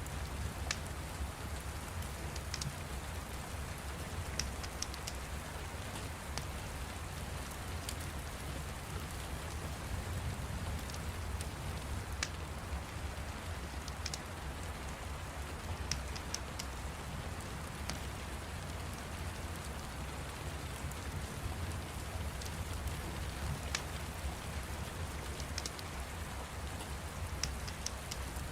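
Steady rain ambience, a constant patter with a low rumble, with scattered sharp crackles of a fire coming through a few times a second.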